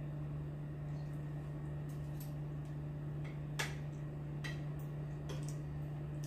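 Spoon and fork tapping and scraping against a glass bowl and plate while eating: a handful of light clicks, the sharpest about three and a half seconds in, over a steady low hum.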